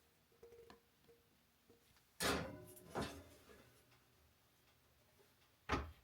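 Kitchenware knocking on a counter: two ringing clinks about a second apart, then a duller knock near the end.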